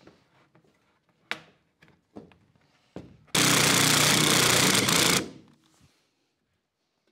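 A few light knocks as the pipe is handled, then a cordless drill runs at full speed for about two seconds and winds down, fixing a bracket for the PVC pipe to the wall.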